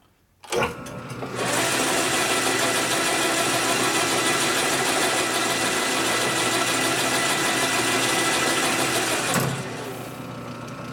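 Metal lathe starting up and running with its four-jaw chuck spinning, a loud steady machine noise with a steady hum under it. Near the end the drive cuts out and the noise drops as the spindle winds down.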